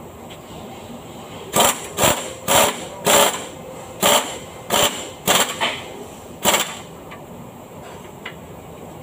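A hand-held air tool on a hose running in about eight short bursts over some five seconds, then stopping.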